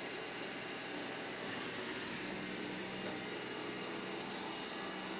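Xiaomi Mi robot vacuum cleaner running with a steady hum.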